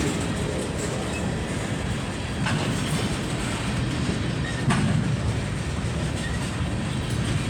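Freight train cars rolling past: a steady rumble and hiss of steel wheels on rail, with a few sharp clacks from the wheels over rail joints.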